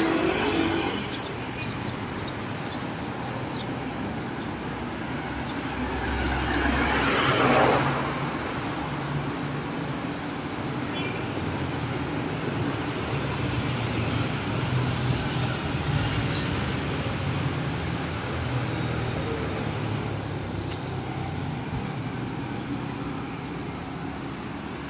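City street traffic: cars and motorcycles driving past with a steady engine hum and tyre noise. One vehicle passes louder and closer, building to a peak about seven seconds in.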